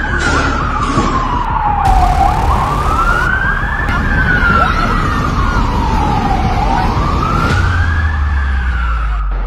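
A siren wailing, its pitch sliding slowly down and back up about every four and a half seconds, over a steady rushing noise.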